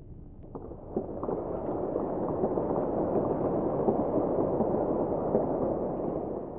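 Audience applauding: many hands clapping, swelling about a second in and then holding steady.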